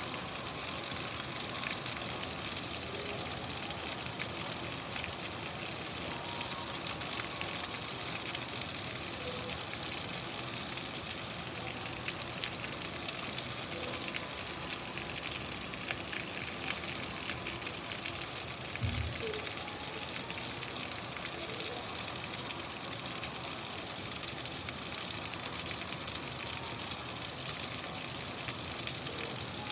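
Steady rain: a dense, even hiss with fine patter of drops. One brief low thump about two-thirds of the way through.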